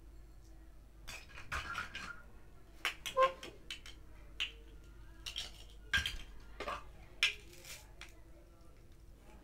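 Plastic toy play-food pieces handled by hand: irregular sharp clacks as the pieces knock together, with a few short rasps as the stuck-together halves are pulled apart, loudest around three, six and seven seconds in.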